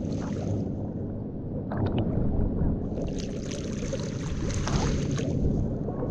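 Lake water sloshing and splashing against an action camera held at the waterline by a swimmer: a steady low rumble, a few small clicks near two seconds in, and a louder splashy hiss from about three seconds in.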